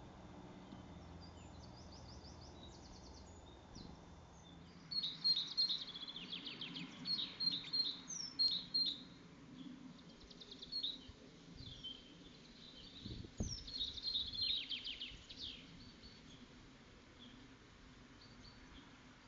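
Songbird singing in repeated bouts of high chirps and quick trills, starting about a quarter of the way in and pausing near the end. A low hum fades out before the song begins, and a single short low thud comes about two-thirds of the way through.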